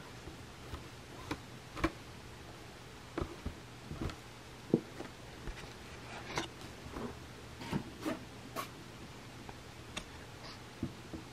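Soft, irregular taps, scratches and rustles from a cat pawing a crinkly ribbon toy on the fabric mat of a mini trampoline, a dozen or so scattered strokes with no rhythm.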